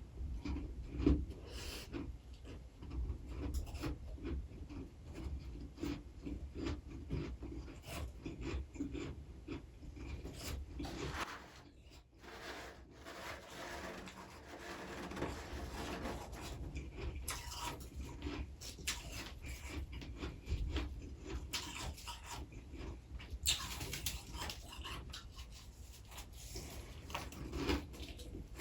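Freezer frost crunching and rasping up close: a dense, irregular run of small crackles and scrapes, easing off briefly about twelve seconds in.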